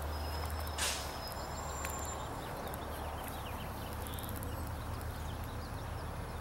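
Outdoor background noise: a steady low rumble under a faint hiss, with a single short click about a second in.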